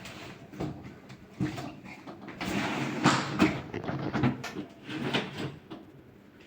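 Washing machine running with clothes inside, giving irregular knocks and bumps and bursts of rushing, churning noise, loudest a few seconds in.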